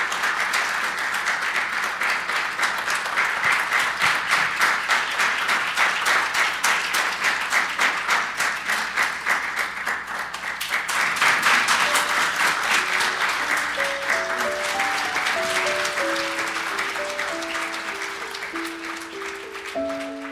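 An audience applauding in a long, steady round of clapping that slowly thins out over the last few seconds. From about twelve seconds in, a slow piano melody comes in underneath.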